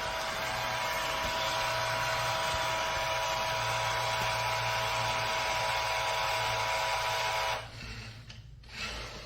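Vacuum motor of an iRobot Roomba j7+ system running steadily, a loud rushing noise with a constant whine and low hum, cutting off suddenly about seven and a half seconds in.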